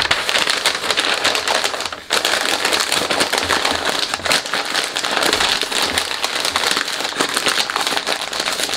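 Sheets of advertising-flyer paper being crumpled by hand into a tight ball: a dense, continuous crackling, with a brief pause about two seconds in.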